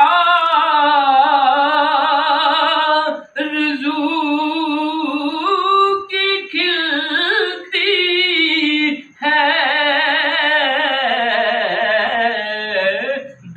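A man singing solo without accompaniment: long held notes with a wavering, ornamented melody, in phrases broken by short pauses.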